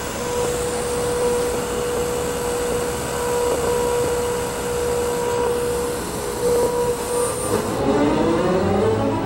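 General Electric Monogram series radio on FM, giving a hiss of static with a steady whistle tone under it. About seven and a half seconds in, the tuning knob is turned: the sound slides in pitch, and a station's music comes in near the end.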